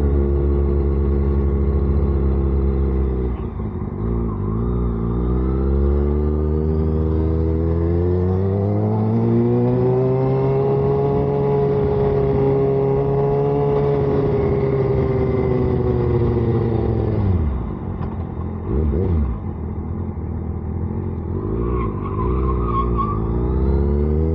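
Sport motorcycle engine under way: it runs steadily, climbs in pitch through a long pull of about five seconds, holds at speed, then falls away and drops low at about seventeen seconds before picking up again near the end.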